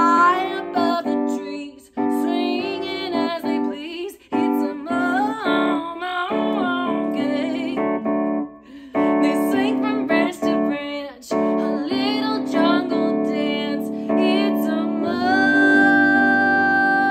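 A woman singing a children's song with piano accompaniment, her voice gliding between notes, ending on one long held note.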